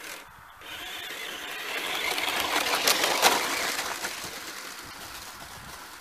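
Remote-control car's motor running as the car drives closer and away again, swelling to its loudest about halfway through, then fading.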